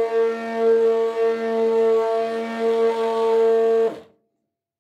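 Old electric immersion hand blender running steadily in a bucket of soapy water, a loud even motor hum, then switched off about four seconds in, its pitch dropping as it stops.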